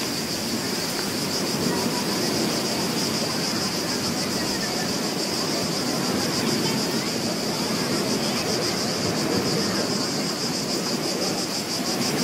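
Beach ambience sound effect: ocean surf washing steadily, with a steady high-pitched pulsing hiss above it.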